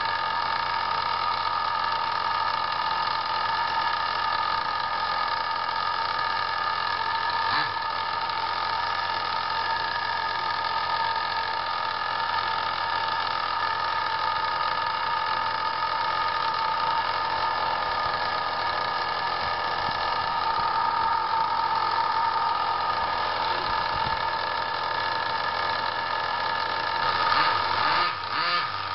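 Radio-controlled drift car's motor and drivetrain spinning the rollers of a rolling-road dyno at a steady speed: a steady whine made of several fixed tones, with a few brief wobbles in pitch near the end.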